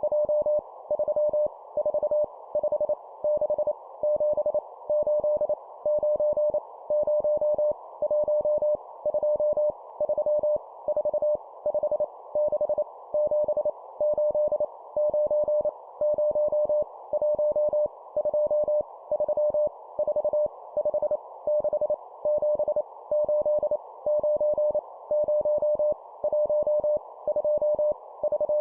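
Morse code (CW) sidetone sending numbers at 25 words per minute: a single mid-pitched beep keyed on and off in quick dots and dashes, in short groups with brief gaps, over a steady band of hiss.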